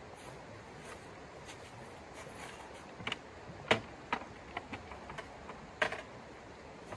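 Metal camp gear being handled: a string of sharp clicks and clacks from a folding metal frame between about three and six seconds in, the loudest two about two seconds apart. Underneath, the steady rush of a shallow creek.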